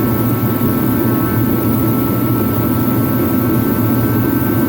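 Craftsman 80,000 BTU kerosene/diesel forced-air heater running on high: a loud, steady fan noise with a deep rush and a faint thin whine held on top.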